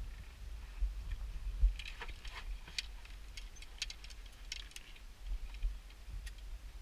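A scatter of small sharp clicks and light clinks of equipment being handled, most of them in the middle few seconds, over a low rumble.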